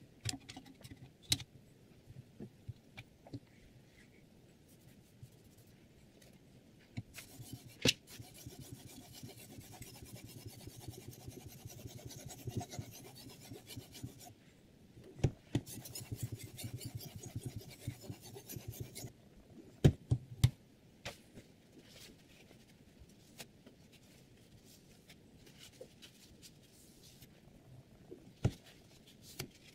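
Diamond sharpening stone on a Hapstone R2 guided sharpener's rod rubbing along the edge of a VG10 steel chef knife, in two spells of strokes of several seconds each. Scattered clicks and knocks come from handling the rod and the clamp, with a few sharper knocks just after the second spell.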